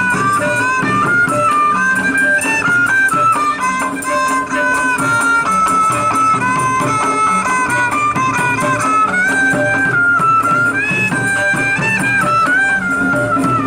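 Traditional Betawi ondel-ondel music: a stepping melody over a steady beat.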